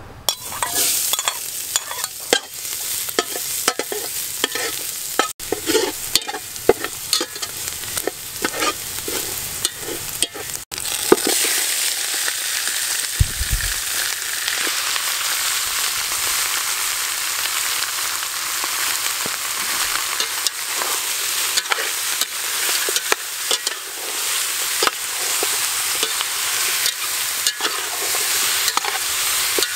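Hot oil in an aluminium pot crackling and spattering, with scattered clicks. About eleven seconds in, chopped chicken pieces are tipped into the oil and a loud, steady frying sizzle takes over, with a single dull thump and stirring sounds on top.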